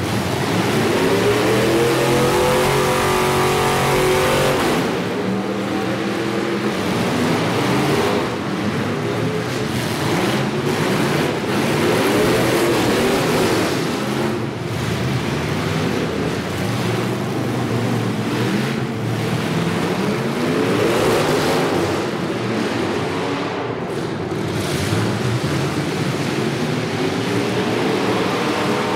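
Demolition derby cars' engines revving hard, several at once, their pitch rising and falling again and again.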